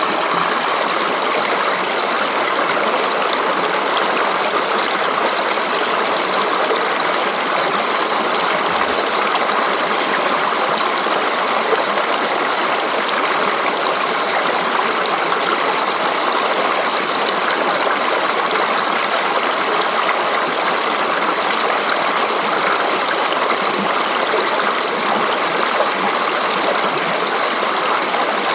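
Fast, shallow mountain stream rushing and splashing over rocks, a steady bright babble.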